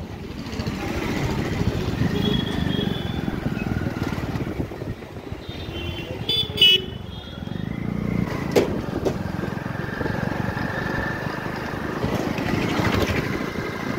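Street traffic with motorcycles running past, and a vehicle horn honking briefly about halfway through.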